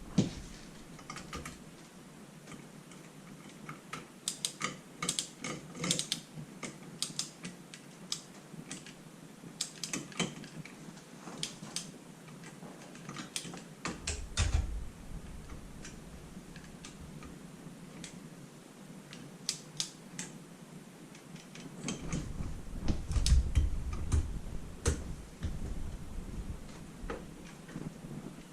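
Irregular light metallic clicks and taps of hand tools and small engine parts being handled during an ATV engine rebuild. There are a few duller thumps, one about halfway and a cluster near the end.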